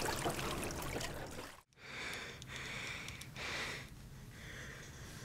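Water splashing and trickling as it is thrown from a metal bowl over a water buffalo standing in shallow river water, cut off abruptly. After a brief silence, a person breathes hard and audibly: about four short breaths, the last one fainter.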